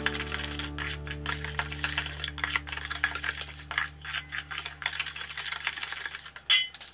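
Metal spoon stirring and scraping a thick paste in a stainless steel mixing bowl: quick, uneven scrapes and clicks, with one louder ringing clink near the end. Background music with a low held note that fades out.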